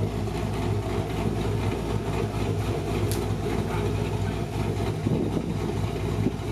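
Car engine running at a steady speed, with no revving.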